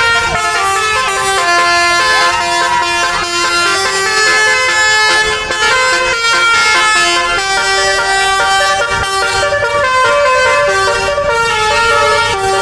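Multi-tone Basuri telolet horn on a bus playing a tune: loud held horn notes that step up and down in pitch one after another, with a few sliding tones.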